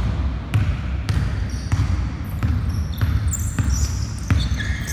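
Basketball being dribbled on a gym court, bouncing about twice a second, with short sneaker squeaks from players' shoes in the second half.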